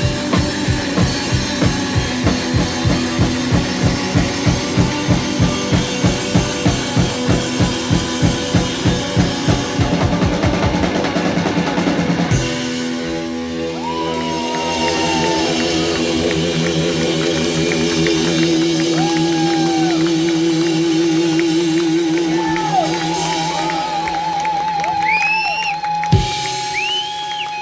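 Live rock band playing: the drum kit pounds a steady, heavy beat under guitars. About twelve seconds in the drums stop and long, wavering notes ring on to close the song.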